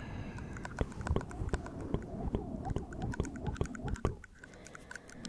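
Fingernails tapping and scratching on a fluffy microphone windscreen: a quick, irregular patter of small clicks over dull, rubbing thuds, easing off about four seconds in.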